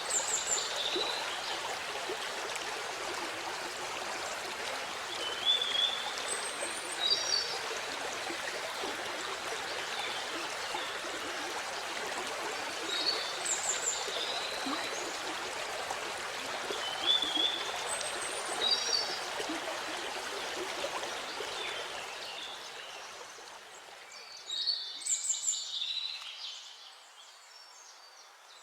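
A small waterfall's water rushing and splashing steadily, with a songbird chirping short phrases every few seconds. Near the end the water sound fades down.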